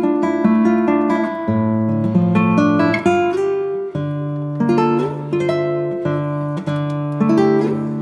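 Background music: a plucked acoustic guitar playing a steady run of picked notes over a moving bass line, with a couple of sliding notes.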